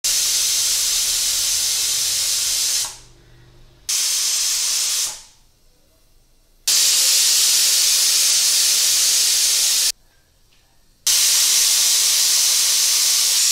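Surya aluminium pressure cooker whistling: four loud hissing blasts of steam escaping past the weighted whistle valve, each cutting off or fading within a second or two. The whistles mean the cooker is at full pressure and are counted to time the cooking of the vegetables.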